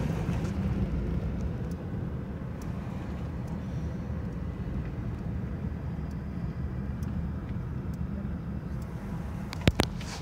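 Steady low rumble of road and engine noise from inside a moving car's cabin. A few sharp clicks come near the end.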